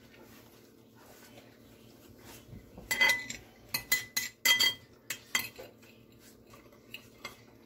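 A fork and knife clinking and scraping on a ceramic plate while cutting a slice of pie. The clinks, some ringing briefly, come in a cluster starting about three seconds in, after a quiet start, with a few more near the end.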